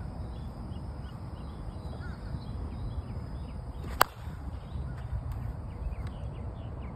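A 1-ounce end-loaded Miken Ultra Big Cat composite softball bat striking a softball once, about four seconds in: a single sharp crack with a brief ringing tone from the barrel.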